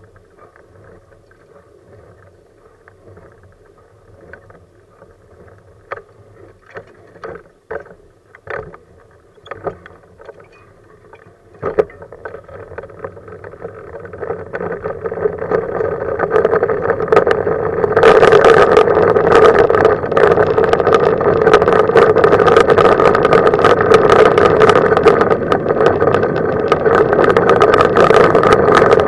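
Manual wheelchair with a Freewheel front wheel rolling on asphalt, with wind on the microphone. A few sharp knocks come first, then the rolling noise swells from about halfway through and runs loud and steady as the chair picks up speed.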